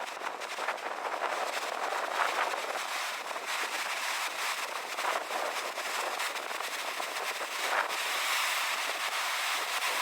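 Sea surf breaking and washing over rocks in strong wind: a steady rush of water and wind that swells a few times as waves hit.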